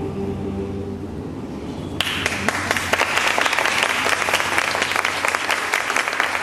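The last held chord of the choir and string orchestra dies away about a second in. Then audience applause starts suddenly about two seconds in and keeps going.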